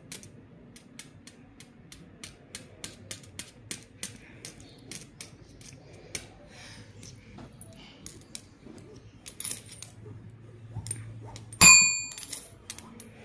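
Metal coins clicking against one another as a toddler picks them up and stacks them, small sharp clicks about two or three a second. Near the end one coin strikes with a loud ringing ding.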